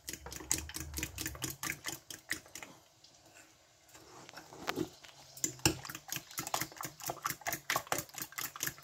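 Fork beating raw eggs and spices in a bowl, its tines clicking rapidly against the bowl's side at about four or five clicks a second, with a short lull of about a second near the middle.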